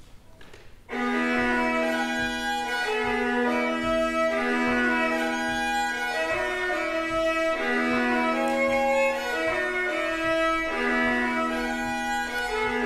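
Hardanger fiddle playing, starting about a second in: a melody bowed in double stops over a steady low drone note, in phrases of three to four seconds with brief breaks between them.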